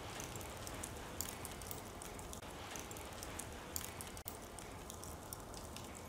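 Faint fire crackling: a low hiss with scattered small pops.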